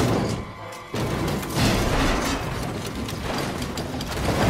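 Film soundtrack of a race car crash: a cartoon stock car tumbling and smashing across grass and dirt, with loud impacts and scraping under music. A sharp burst of noise opens it, and another surge follows about a second in.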